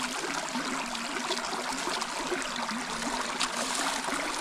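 Steady trickle of running water, with small crackles.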